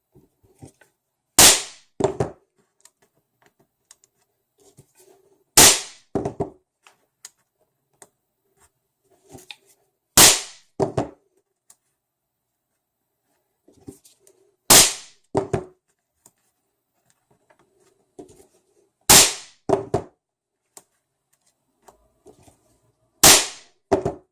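Toy cap gun firing paper caps: six sharp bangs about four seconds apart, each followed by a click or two, with faint handling between shots.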